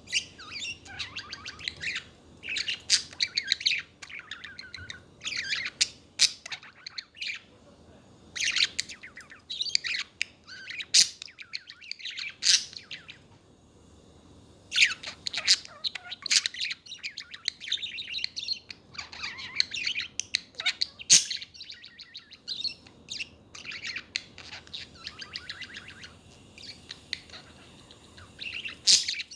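Pet budgerigars chattering: rapid warbling and chirping in phrases of a second or two, broken by short pauses and a few sharp clicks.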